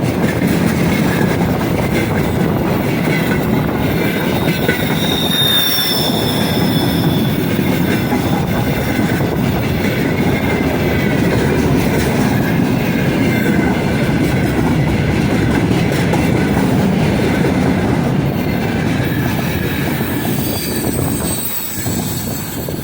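Freight train wagons rolling past on the rails, a steady loud rumble of wheels on track. Short high wheel squeals come about six seconds in and again near the end, and the noise eases slightly in the last seconds.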